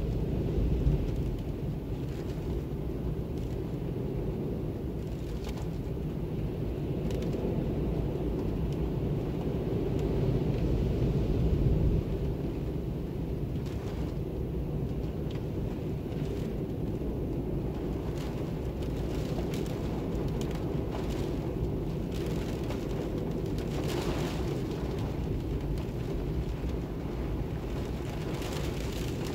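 Storm winds gusting in a deep, rushing rumble. A stronger gust builds about ten seconds in and drops off suddenly a couple of seconds later.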